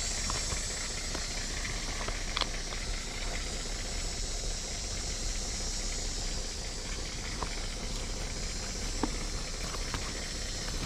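Steady hiss of background noise with a few faint clicks.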